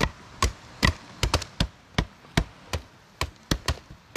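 A blade chopping freshly gathered vine stems into pieces: a run of sharp chops, about three a second, unevenly spaced.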